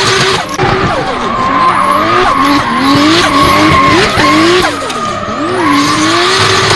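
Race car engine sounds revving up in pitch again and again and dropping back, as through gear changes.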